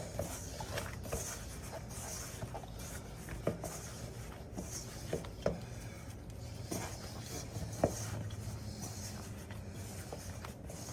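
Cookie dough being kneaded by hand in a bowl: quiet handling sounds with a few light knocks scattered through.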